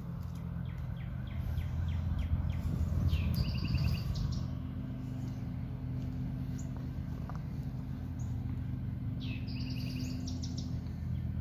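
Small birds chirping: a quick run of high chirps, then a short trilled call twice, over a steady low hum.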